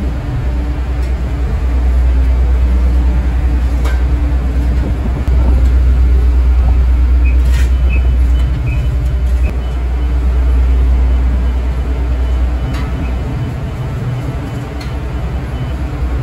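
Diesel engine of a Sumitomo HA45W asphalt finisher running steadily during paving, a loud low drone that swells and eases slightly, with a few light clicks and knocks.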